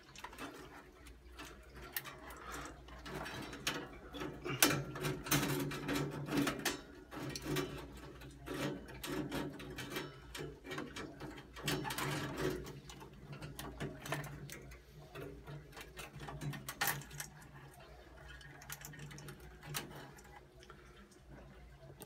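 Hands working at a boiler's metal control box and its wiring, giving irregular clicks, taps and rattles of metal and plastic as wires and a thermostat sensor are pulled out of their clips.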